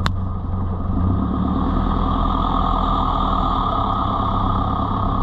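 Off-road 4x4 vehicle engine running steadily at a low, even speed, with one sharp click right at the start.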